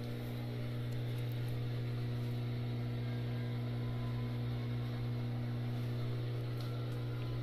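A steady low hum, unchanging throughout, from a motor or electrical appliance.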